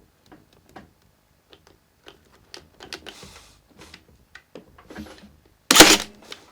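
Light clicks and handling of a Ryobi 18V ONE+ cordless crown stapler, then one loud, sharp firing near the end as it drives a staple over a wire, which damages the wire.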